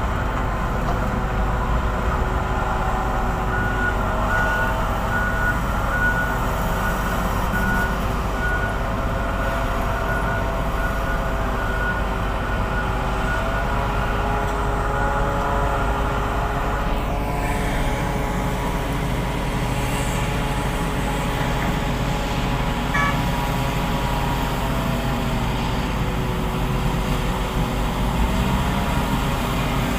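Heavy diesel engines of a Hitachi 2600 mining excavator and haul trucks running steadily under load. An alarm beeps about twice a second for the first dozen seconds.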